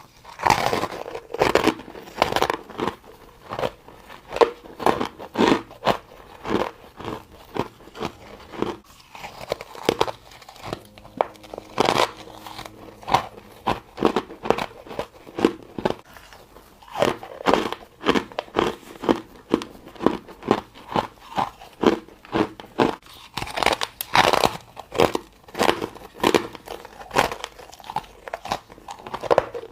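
A person biting and chewing ice close to the microphone: a steady run of crisp crunches, about two a second, with a few louder bites.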